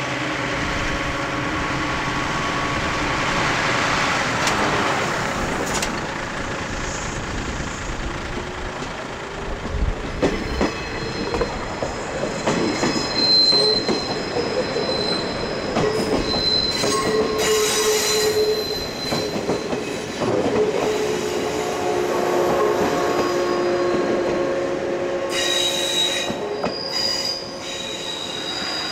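381-series train cars rolling slowly past with their wheels squealing on the rail: several long, steady high tones that come and go through the middle and later part, over a rolling clatter with clicks at the rail joints.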